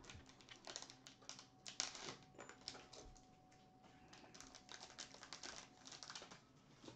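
Faint, irregular clicks and crinkles of sealed trading-card packs and their boxes being handled and shuffled on a table.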